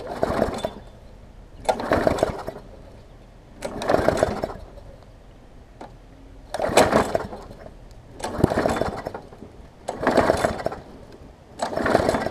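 Briggs & Stratton Classic push-mower engine being pull-started seven times by its recoil starter. Each pull cranks the engine over for under a second, about every two seconds, and it never catches.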